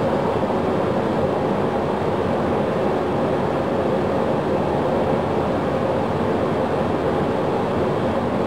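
Steady rushing noise of a Boeing 737 engine during a start, the start valve open and the core spooling up. This is the 'no N1 rotation' abnormal start: the fan shows no rotation while N2 and exhaust temperature climb.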